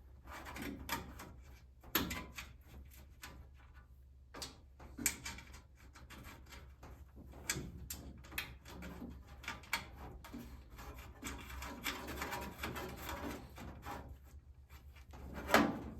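Scattered light clicks, taps and rustles of hands handling small metal hardware, bolts, nuts and a bracket, while fitting a catch can.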